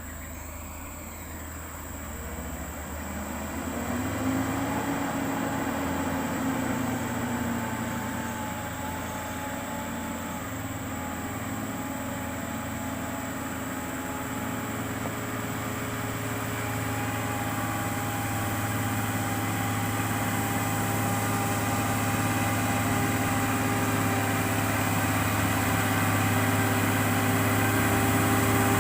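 Scania truck's diesel engine labouring up a steep grade under the load of an excavator on its trailer. It runs steadily with one brief rise and fall in pitch about four to eight seconds in, and grows louder as the truck approaches.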